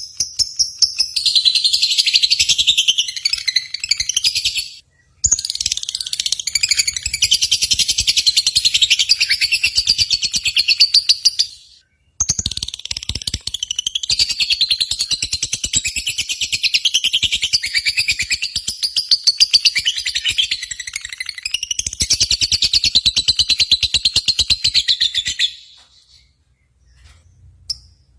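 Lovebirds chattering in long, rapid high-pitched trills. The twittering breaks off briefly about five and about twelve seconds in, then dies away near the end.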